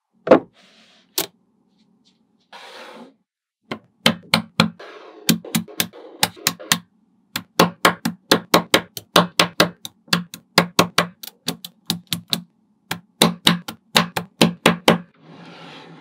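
Small magnetic balls snapping onto one another in a rapid run of sharp clicks, about two to three a second, as a structure is assembled piece by piece, with brief scraping rustles near the start and end.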